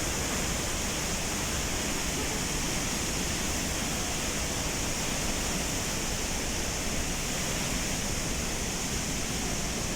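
Pailón del Diablo waterfall on the Pastaza River, a steady, unbroken rush of falling water.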